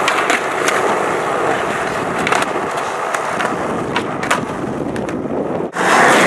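Skateboard wheels rolling on concrete, with several sharp clacks of the board popping off and landing. Near the end a board rolls close by and the rolling noise gets louder.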